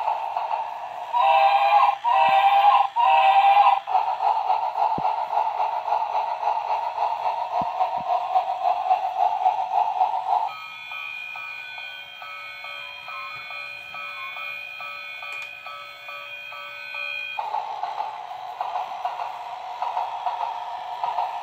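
Battery-powered toy train's small electric motor and plastic gears whirring steadily as it climbs and runs along the plastic track, with three short wavering electronic tones about a second in. About ten seconds in the whirring stops and a tinny electronic tune plays for about seven seconds, then the whirring starts again.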